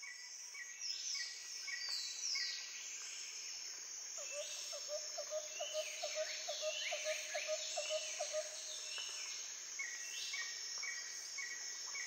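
Chorus of birds and insects: a steady high insect drone under short repeated notes and many falling chirps. A quick run of lower notes, about three a second, starts about four seconds in and stops after about four and a half seconds.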